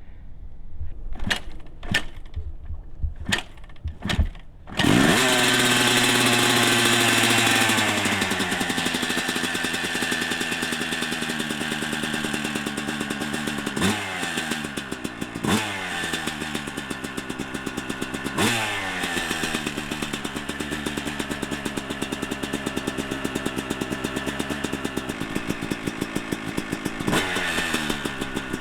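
2003 Suzuki RM250 two-stroke single on a freshly rebuilt Keihin PWK 38 carburettor, cold-started: a few kicks, then it catches about five seconds in, revs high and settles to a fast, rattly idle. It is blipped with sharp revs several times.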